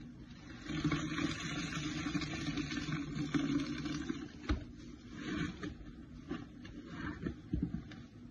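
Soapy sponges squeezed and wrung in a basin of thick foam, with wet squelching and liquid draining and dripping out of them. A sharp knock comes about four and a half seconds in, and the squeezing continues in short irregular squelches after it.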